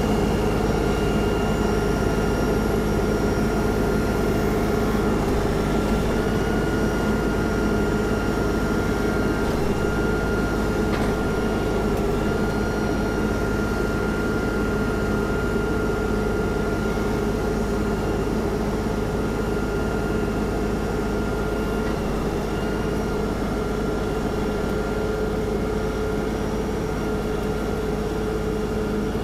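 LS MT342 compact tractor's diesel engine running steadily while the front loader lifts and tips a water-filled IBC tote, with a thin steady whine above the engine note.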